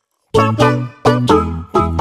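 Live saxophone with keyboard accompaniment: after a short silence, a run of short, separate notes over a bass line starts about a third of a second in.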